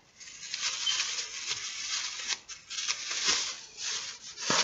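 Clear plastic bag rustling and crinkling as it is pulled off a bobblehead figure, with a few sharper crackles near the end.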